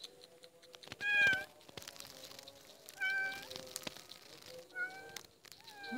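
A cat meowing: three short meows, the loudest about a second in, with a fourth starting at the very end. Faint scattered clicks between the calls.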